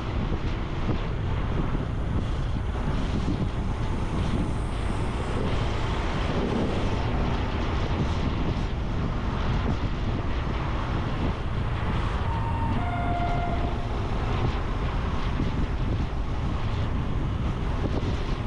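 Wind buffeting the microphone over the steady running of a Honda Super Cub C125's single-cylinder 125 cc engine on the move. A short beeping tone sounds about two-thirds of the way in.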